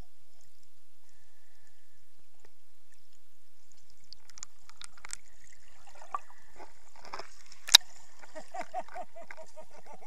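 Underwater water noise: quiet at first, then gurgling and bubbling with scattered clicks as a diving bird churns the water beside the camera. There is one sharp knock near the end, then a quick run of bubbling pulses, about five a second.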